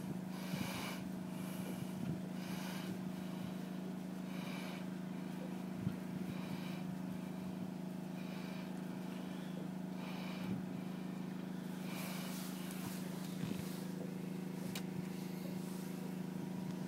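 A steady low mechanical hum with a few overtones, with faint scratchy rubbing now and then.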